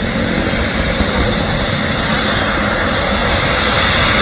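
Boeing 777-300ER's GE90 turbofan engines running at low taxi thrust as the jet rolls past, a steady engine noise that grows slightly louder near the end.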